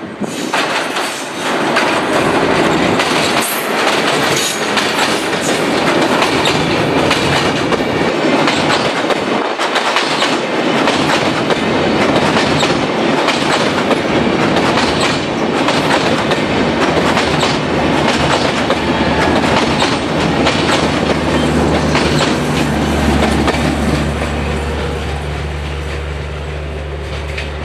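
Chitra Express passenger train passing close by at speed: a continuous loud clickety-clack of the coach wheels over the rail joints, with wheel and rail rumble. Near the end a steady low hum comes in as the rattle eases.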